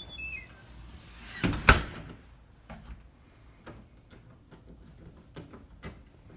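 Sliding door rolled along its track and knocking to a stop about a second and a half in, after a few short squeaks at the start. A few faint knocks follow.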